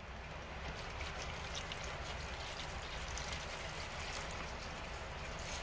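Vinegar being poured steadily into a container over the bullets to soak them for rust cleaning, a continuous pouring trickle that starts at the opening.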